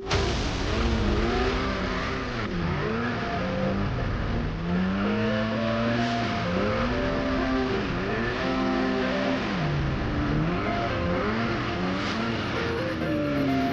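Polaris RMK 700 snowmobile's two-stroke engine under load, its pitch rising and falling over and over as the throttle is worked.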